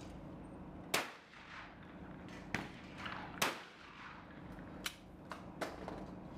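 Several sharp shotgun shots, the loudest about a second in and about three and a half seconds in, with fainter reports between and after.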